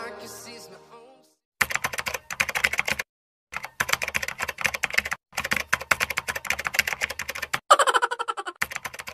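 Typing sound effect: rapid keyboard clicks in runs broken by short pauses, laid over text being typed out on screen, with a louder burst near the end. The tail of the intro music fades out in the first second.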